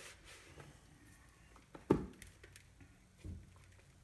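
Hands working and gathering a stiff lard dough in a plastic mixing bowl: quiet squishing and scraping, with one sharp knock about two seconds in and a softer thump a little over a second later.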